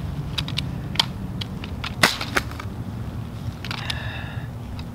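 Mossberg 12-gauge pump shotgun handled after a drop onto leaf-covered ground: a few sharp clicks and knocks as it is lifted and stood back up, the loudest about two seconds in. A steady low hum runs underneath, and a short high tone sounds near the end.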